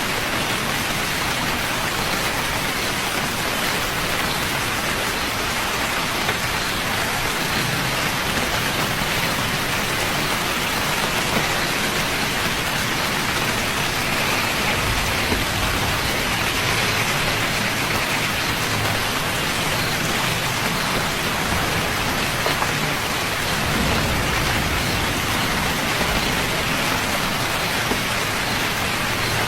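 Steady rain falling, a dense even hiss of many drops, with a low rumble swelling briefly a couple of times in the second half.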